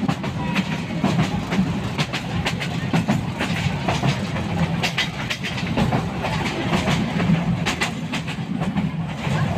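Moving passenger train heard from inside the carriage by an open window: a steady low rumble of the running train with frequent, irregular sharp clicks and rattles.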